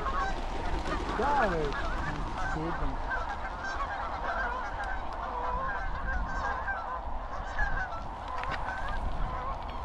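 A flock of waterfowl, likely geese, calling continuously with many short overlapping honks. One longer rising-and-falling call comes about a second in, over a steady low rumble.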